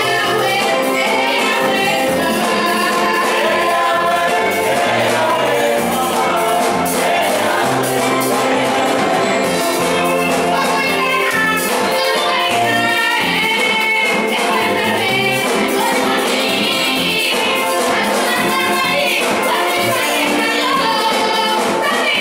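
Live gospel praise music: a woman sings lead into a microphone with a group of backing singers, over keyboard and drums with a walking bass line and steady jingling percussion.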